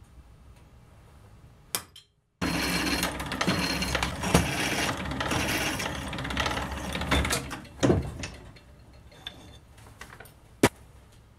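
Drill press running with a twist drill cutting through steel flat bar, starting abruptly about two seconds in and continuing until about eight seconds, with a few sharp knocks along the way; after that it is quieter, with a single sharp click near the end.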